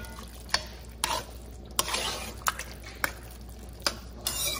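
A metal spoon stirring a thick, wet sausage, cream cheese and Rotel dip in an enameled Dutch oven: irregular clicks and scrapes of the spoon against the pot, with wet squelching of the mixture between them.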